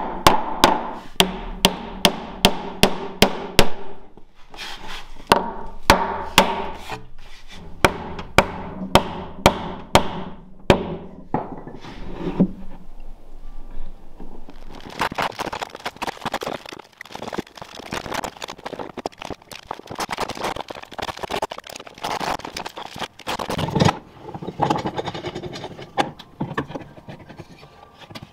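Hammer blows on oak stair parts during a glue-up, about two a second for the first eleven seconds, then quieter, irregular knocking and handling of the timber.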